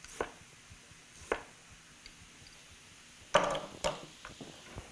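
Chef's knife slicing a ginger root into coins on a cutting board: two single chops in the first second and a half, then a louder, longer clatter and knock about three and a half seconds in.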